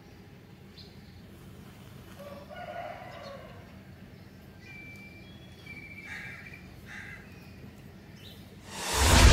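A rooster crowing faintly in the background, followed by a few short, thin calls. Near the end a loud boom-and-whoosh sound effect starts abruptly.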